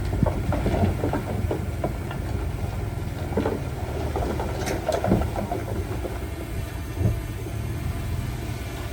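Diesel engine of heavy earthmoving machinery running steadily, with irregular clanks and knocks through it, the loudest about five and seven seconds in.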